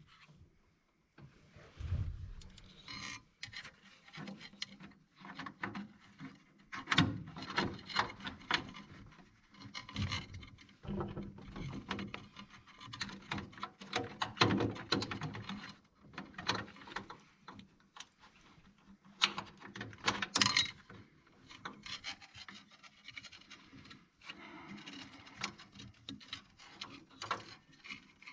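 Irregular clicks, small knocks and rubbing from hand work on a car dashboard while the instrument panel is being removed, with louder knocks around seven and twenty seconds in.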